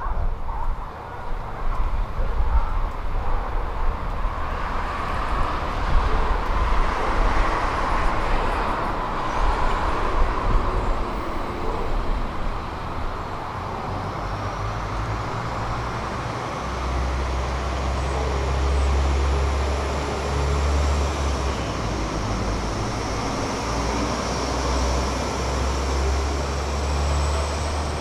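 Road traffic and a train at the station. A vehicle passes, swelling and fading about four to twelve seconds in; then a steady low rumble sets in, with a faint high whine slowly rising.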